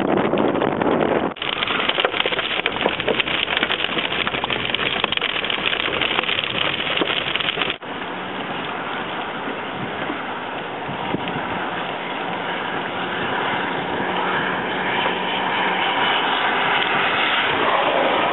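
Loud rushing wind buffeting the microphone, with the steady noise of a vehicle on the move. The sound cuts off abruptly twice as clips change, and the middle stretch is the most crackly and intense.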